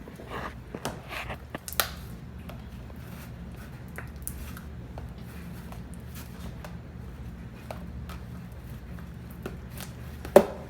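Sticky glitter slime being squished and stretched by hand: soft squelches and small clicking pops, with one sharp click near the end.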